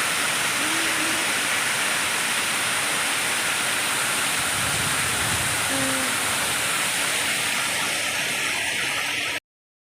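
Water of a stone fountain pouring down from an upper stone and splashing into the water below: a steady rushing splash that cuts off abruptly near the end.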